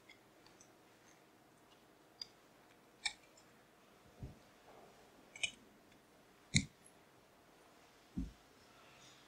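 Faint, scattered clicks and knocks, one every second or two, the loudest a sharp knock about two-thirds of the way through, with two dull low thumps between them.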